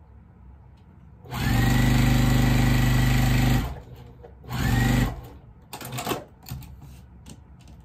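Juki sewing machine running at a steady speed for about two seconds as it sews a seam, then a second, shorter run of under a second; each run opens with a rising whine as the motor spins up. A few light clicks and rustles follow near the end.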